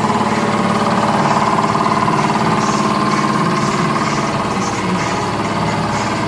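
An engine idling steadily with an even drone.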